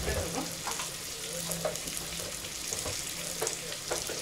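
Pangasius fillets frying in oil in a pan, a steady sizzling hiss, with scattered light clicks over it.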